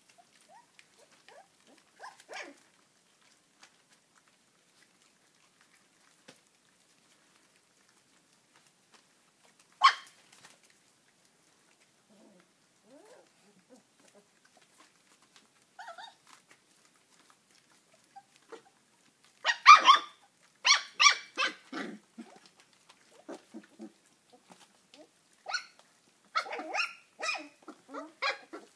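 Puppies yapping: a run of short, high-pitched barks about once a second in the last third, after a mostly quiet stretch of faint clicks and one sharp knock about ten seconds in.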